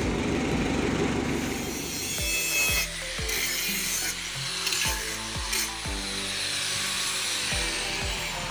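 An angle grinder cutting a steel exhaust pipe. It follows about two seconds of the Mitsubishi L300's engine running at the tailpipe.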